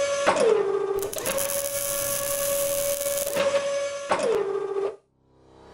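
Sound-effect servo whine of industrial robot arms: a steady motor whine whose pitch drops twice, with a stretch of loud hissing in the middle. The whine cuts off near the end and a slowly rising swell follows.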